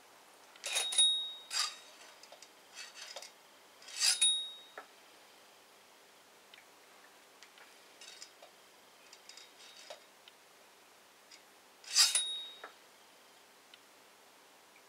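Light metal clinks and scrapes of a steel tape measure blade against a motorcycle fork tube while the fork oil level is being measured, with three sharper ringing clinks about a second in, at about four seconds and near the end, and fainter ticks between.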